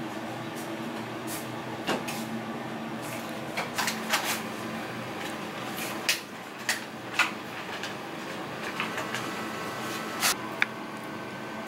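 Steady room hum with about ten sharp clicks and knocks of tableware scattered through it, the kind of clatter chopsticks make against a lacquered box.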